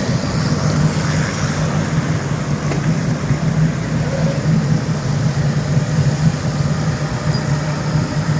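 Boat engines running with a steady low drone as boats motor out of the marina.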